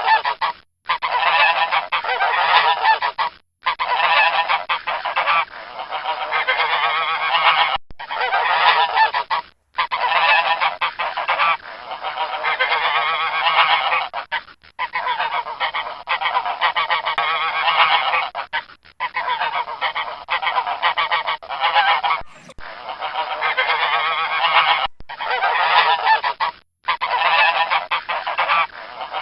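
Domestic geese honking continuously, in runs of a few seconds each separated by short silent breaks.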